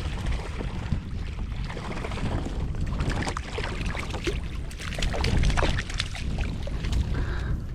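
Wind buffeting the microphone with water splashing and lapping around a kayak, with scattered small clicks and knocks.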